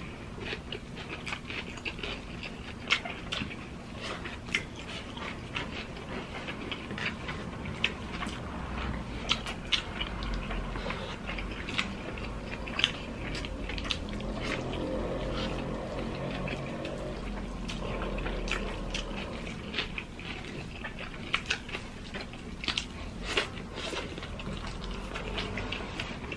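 Close-up chewing and mouth sounds of people eating rice, hotdog and egg by hand: wet chewing with many sharp clicks and smacks scattered throughout.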